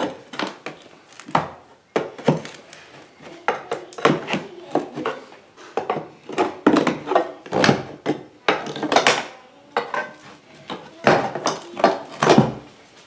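Hammer blows on a metal tool cutting and prying out a damaged oak floorboard: sharp, irregular knocks with a metallic clink, about one or two a second.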